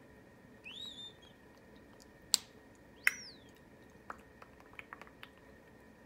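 A pet parrot giving two short whistled calls, the first rising then levelling off, the second falling. Between them come two loud sharp clicks, and several lighter ticks follow.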